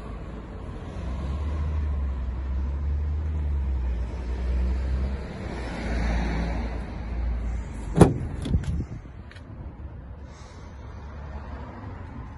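A low rumble for the first several seconds, then the rear crew-cab door of a Mercedes-Benz Sprinter van being unlatched and opened. A sharp, loud click comes about eight seconds in, a second click follows just after, and then a few lighter clicks.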